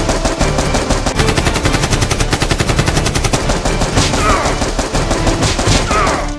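Rapid automatic gunfire, a dense unbroken stream of many shots a second, as added to a staged Nerf battle. Two short falling whooshes cut through it in the second half.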